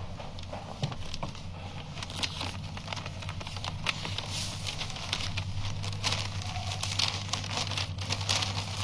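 A paper envelope being torn open and a letter pulled out and unfolded: irregular rustling and crinkling of paper, busier in the second half.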